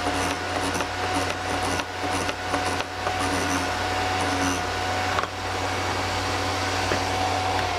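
Vevor electric drill bit sharpener running with a steady motor whine and hum while a drill bit is ground against its wheel. The grinding scrapes repeat about twice a second for the first few seconds.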